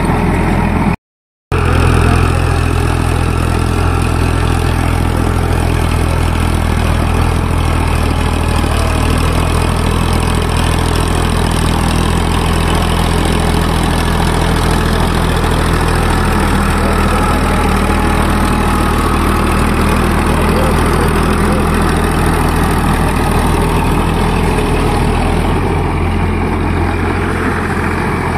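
Eicher 551 Super Plus tractor's diesel engine running at a steady speed while working a rotavator and seed drill. The sound cuts out for about half a second about a second in, then carries on unchanged.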